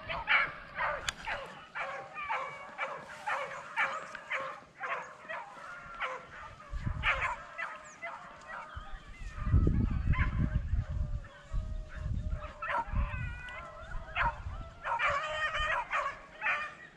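A pack of beagles baying and yelping in many short, overlapping cries, as rabbit hounds do when running a rabbit's scent trail. A low rumble on the microphone joins in for a few seconds midway.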